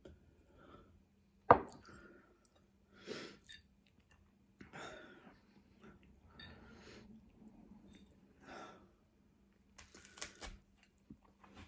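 A person chewing food close to the microphone, with scattered short mouth and eating noises. A sharp click about a second and a half in is the loudest moment.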